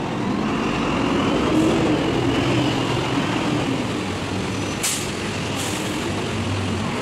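City bus driving past with its engine running and tyres on the road, loudest about a second or two in. Two short, sharp hisses follow near five seconds in.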